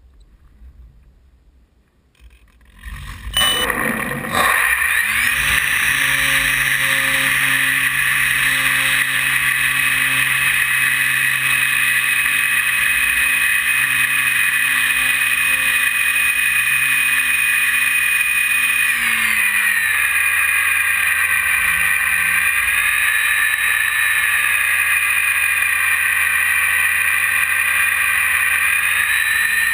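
E-flite 480 brushless outrunner motor (1020 kV) and propeller on a Mini Ultra Stick RC plane, heard from an onboard camera. About three seconds in, the motor spins up with a rising whine and settles into a steady high whine over a rush of air. About two-thirds of the way through, the pitch steps down and then wavers as the throttle changes.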